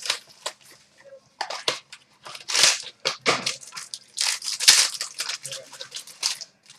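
A trading card pack wrapper being torn open and crinkled by hand, in irregular crackly bursts with a couple of louder rips near the middle.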